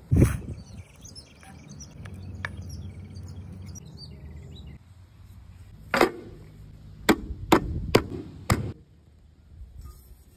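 A loud knock at the start, then five sharp knocks about half a second apart near the middle and end, as hands strike an upturned metal vessel. The strikes knock the set mango pudding loose from the mould onto a banana leaf.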